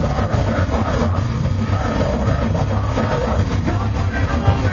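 Heavy metal band playing live and loud: two distorted electric guitars over a Ludwig drum kit, in a dense, unbroken wall of sound.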